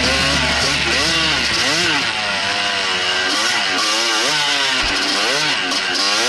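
Dirt bike engine revving up and down under throttle while riding, its pitch rising and falling many times in quick succession.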